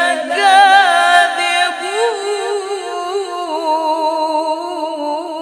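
A woman reciting the Quran in the melodic tilawah style, drawing out one long sung phrase with wavering, ornamented turns of pitch and no pause for breath.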